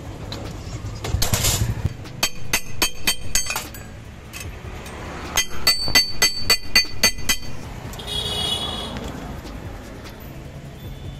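Two quick runs of sharp metal-on-metal strikes, about eight each, as a strip of galvanized sheet steel is hammered into shape on a steel block to make a bracket. Each blow rings clearly. A short scraping rasp of metal comes just before the first run.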